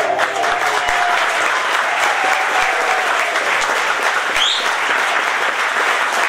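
Theatre audience applauding steadily as the chorus's last sung note dies away in the first second. A short rising whistle cuts through the clapping about four seconds in.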